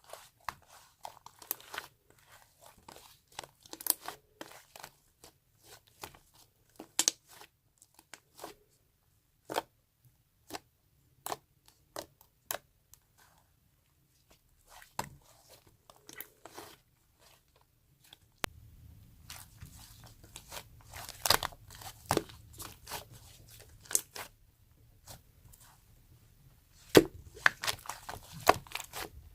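Fluffy slime being squeezed and poked, giving off irregular sharp crackles and pops as air pockets burst. The pops are sparse in the middle and come thick and fast near the end, over a faint low hum that enters about two-thirds of the way through.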